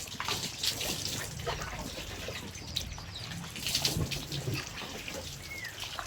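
Water dripping and trickling in irregular small splashes, with one short bird chirp near the end.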